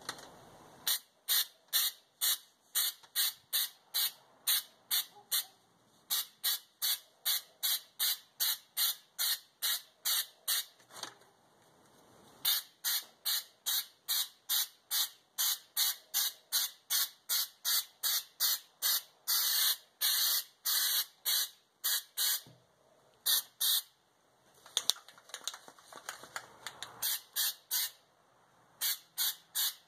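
Aerosol can of spray-on bed liner hissing in short bursts, about two or three a second, as it coats a car's trunk floor. There are a few brief pauses and one longer spray about two-thirds of the way through.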